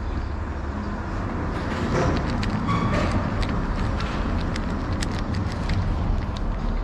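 Kitten crunching dry kibble close to the microphone: a string of small, sharp crunches over the steady low rumble of road traffic, which grows a little louder about two seconds in.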